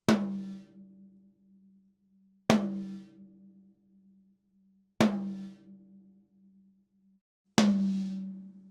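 Tama Star Walnut 8-inch rack tom struck with a stick four times, about two and a half seconds apart, during a sound check. Each hit rings out with a steady low tone that fades away before the next.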